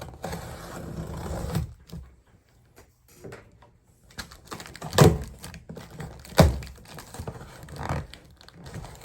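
A cardboard shipping box and its packaging being handled and opened: rustling and scraping, with two heavy thuds about five and six and a half seconds in.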